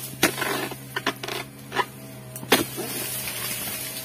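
Several sharp strikes of a dodos, a chisel-bladed palm-harvesting tool, cutting into oil palm fronds and stalks, with rustling between the strikes. A steady low hum runs underneath.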